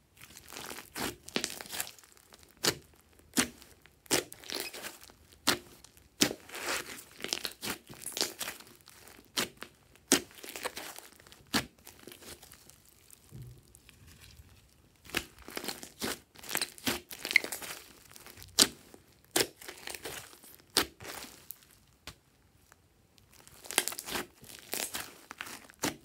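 Thick slime mixed with small foam beads being stretched, pulled apart and squeezed by hand, giving irregular sticky crackles and sharp pops, with a couple of quieter pauses.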